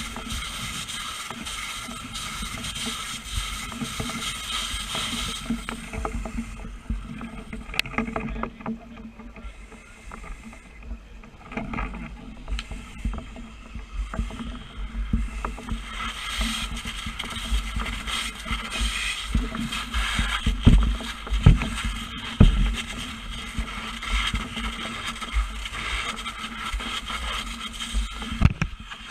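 An engine running steadily, with scattered knocks and thuds.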